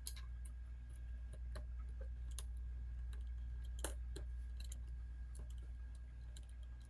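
Metal tweezers clicking and tapping against a tiny loose phone screw and the phone's frame, working the screw out of its hole. Scattered light clicks, the sharpest about four seconds in, over a steady low hum.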